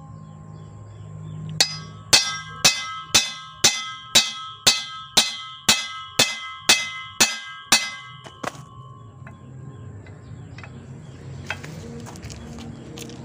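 Claw hammer striking the steel yoke of a Toyota Kijang propeller shaft, about fourteen blows at roughly two a second, each leaving a metallic ring, to drive out the worn universal joint (cross joint). The blows stop about two-thirds of the way in.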